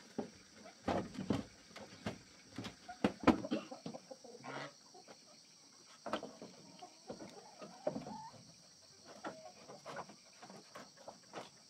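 Chickens clucking, with irregular sharp knocks and taps from bamboo poles being handled; the loudest knock comes about three seconds in.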